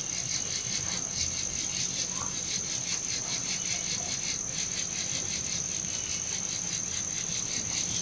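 Crickets chirping steadily: a constant high trill with a quick, even pulse.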